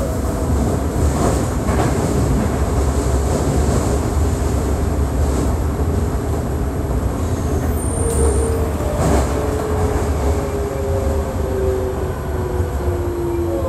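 Toei Asakusa Line 5300 series subway train running, with a steady low rumble and a few sharp wheel clicks in the first half. From about eight seconds in, a motor whine slowly falls in pitch as the train slows.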